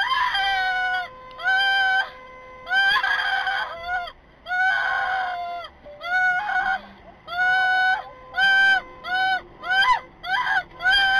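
Car horn sounded over and over in urgent blasts, some held for about a second and others short and quick, coming faster near the end. It is the horn of a Chevrolet Spark that is speeding out of control in what is reported as sudden unintended acceleration, and it warns those ahead.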